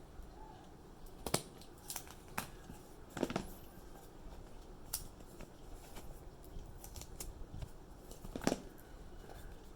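A sealed phone box being opened by hand: a few scattered sharp clicks and snips of plastic and cardboard, the strongest near the end, among quieter rustling.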